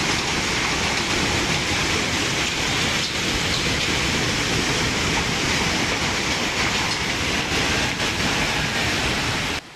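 Steady, loud rushing noise with a fluttering low rumble beneath it, cutting off abruptly near the end.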